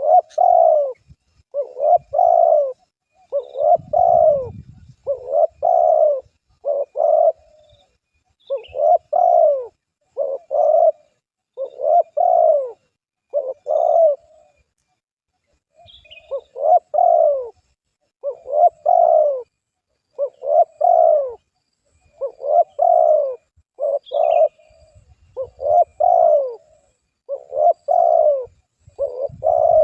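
A dove cooing: a low, soft coo phrase repeated over and over, every one to two seconds, with a short pause near the middle.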